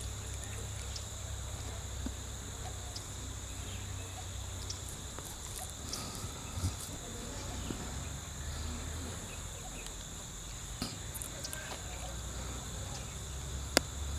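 Steady chorus of insects: two even, high-pitched trills held constant throughout, over a low rumble with a few faint clicks.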